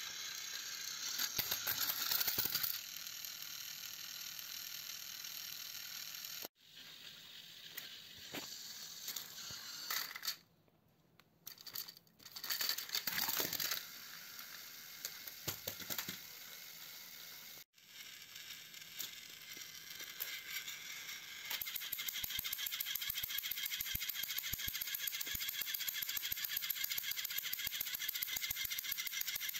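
Battery-powered Plarail toy trains running on plastic track: the small gear motors make a rattling, clicking whir, broken by a couple of sudden cuts. About two-thirds of the way in it settles into a steady, fast ticking.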